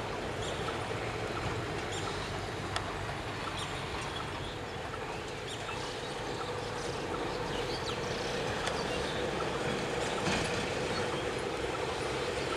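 Steady engine drone of a diesel locomotive slowly approaching a level crossing, a little stronger in the second half, with faint small chirps and clicks over it.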